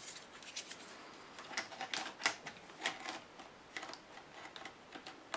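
Plastic battery pack being handled and fitted into the battery bay along the back edge of an Acer Aspire V5 laptop: an irregular run of light clicks and taps, thickest in the middle.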